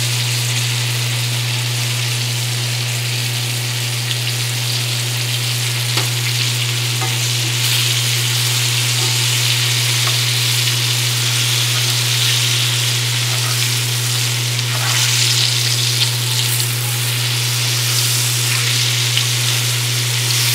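Battered rock cod fillets frying in shallow oil in a cast-iron skillet: a steady, even sizzling. A steady low hum runs underneath.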